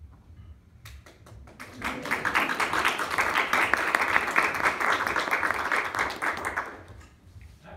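Audience applauding. A few scattered claps about a second in build quickly into full applause, which holds for several seconds and dies away near the end.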